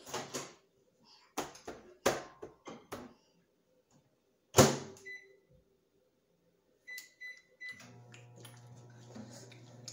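A few sharp knocks and clatters of kitchen work, then three short keypad beeps and a microwave oven starting up, running with a steady hum.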